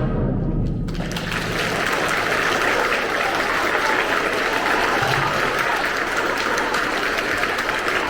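A large audience applauding, with the applause swelling up about a second in as the last low notes of orchestral music die away.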